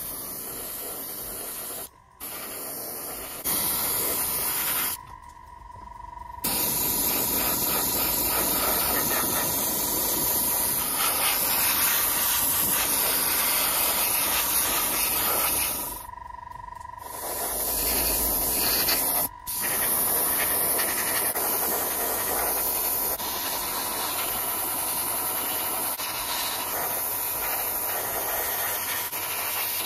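Airbrush with a 0.2 nozzle spraying thinned paint: a steady hiss of air and paint in long bursts, with a few short pauses where the trigger is let go.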